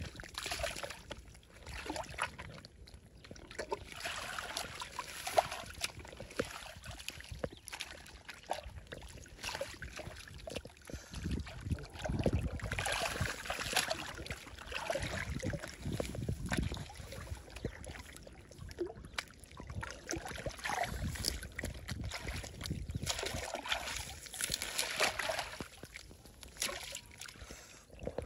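Shallow stream water splashing and sloshing in irregular bursts, busiest around the middle and again near the end.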